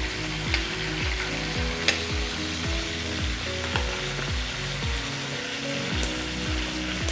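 Marinated chicken pieces sizzling as they fry in a little hot oil in a nonstick frying pan, with a few sharp clicks of a utensil. Background music with a steady beat runs underneath.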